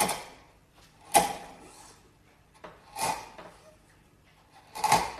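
Sharp bench chisel pushed by hand down through wood, removing waste short of a gauge line: four crisp cuts a second or two apart, each a sudden crunch of severed fibres that quickly fades.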